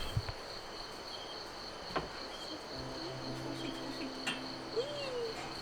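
Crickets chirring steadily, a constant high-pitched trill.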